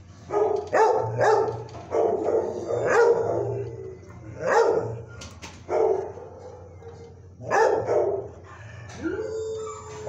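Dog barking in repeated bouts, about six loud volleys, with a longer drawn-out cry near the end.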